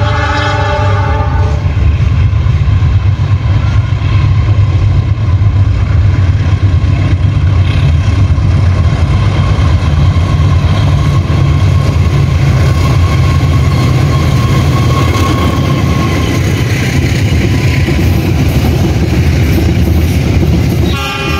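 Coal train passing close by, its heavy rumble running steadily throughout. A multi-tone train horn sounds for about a second and a half at the start, and sounds again just before the end.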